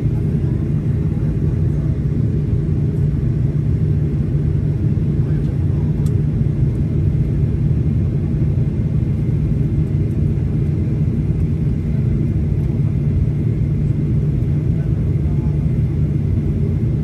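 Steady low rumble of a Boeing 737-800 heard from inside the passenger cabin: the drone of its CFM56 jet engines and the airflow, holding an even level throughout.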